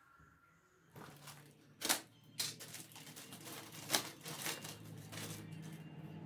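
Hand work on a scooter: tools and small metal parts clicking, rattling and knocking, starting about a second in, with sharp knocks about two and four seconds in.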